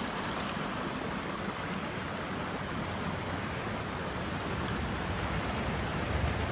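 Rain-swollen creek running over rocks: a steady rush of water.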